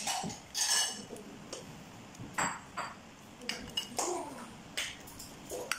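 Metal spoon clinking and scraping against a wok and a metal baking pan while spooning out ground-meat sauce: several sharp, irregularly spaced clinks.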